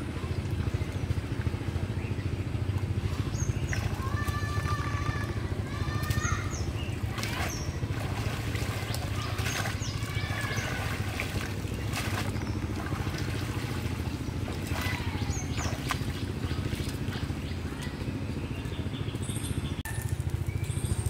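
Water sloshing and dripping as a cast net is gathered and hauled up out of a pond, with scattered bird calls. A steady low rumble runs underneath.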